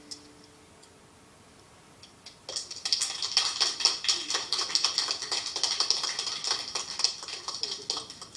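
The last chord of an acoustic guitar fades out. About two and a half seconds in, a fast, irregular run of sharp, loud clicking taps starts close to the microphone and keeps going.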